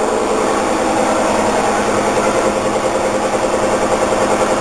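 Steady mechanical hum with a constant low pitch and its overtones, unchanging throughout.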